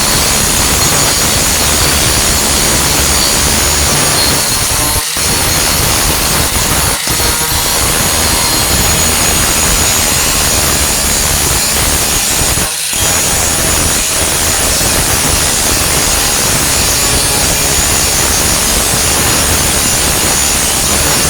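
A 4-1/2 in. electric angle grinder with a grinding disc, grinding down flux-core welds on a steel tailgate patch, running loud and steady with three very brief breaks in the cut.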